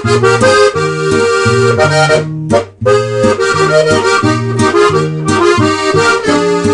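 Accordion music: held chords over a bass line that steps between notes in a steady rhythm.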